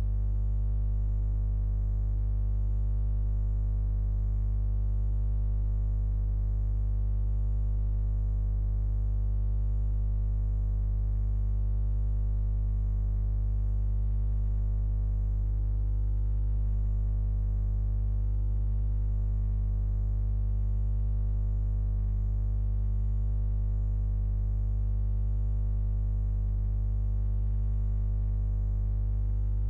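A steady, unchanging low hum with many even overtones, strongest in the bass.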